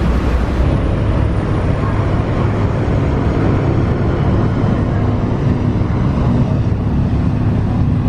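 Star Ferry under way: a loud, steady low engine drone with a faint hum of a few low pitches, under a constant rush of noise.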